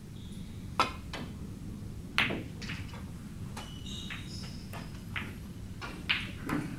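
Snooker balls clacking: a sharp click of the cue ball being struck about a second in, a louder-sounding ball-on-ball click a little over a second later, then softer knocks as the balls run into cushions and each other.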